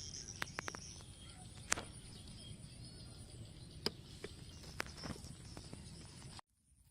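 Outdoor ambience of steady insect chirring with scattered sharp clicks and knocks, cut off abruptly near the end.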